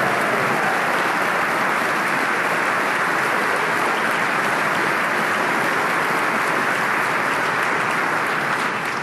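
A large audience applauding: many people clapping together in a dense, steady wash that starts to die away at the very end.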